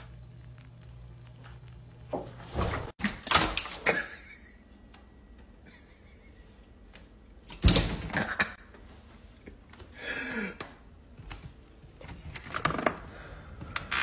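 Cat knocking and pawing against a glass sliding door: several short knocks and scrapes, the sharpest and loudest about eight seconds in. Before that, a low steady hum.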